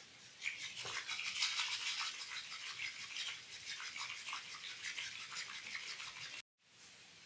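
Bamboo tea whisk (chasen) beating matcha briskly in a ceramic tea bowl, frothing the tea: a fast, scratchy swishing of rapid strokes. It starts about half a second in and stops abruptly near the end.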